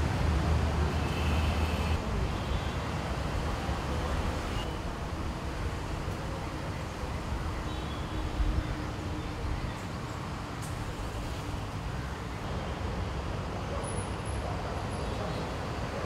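Steady rumble of road traffic, a little louder in the first two seconds.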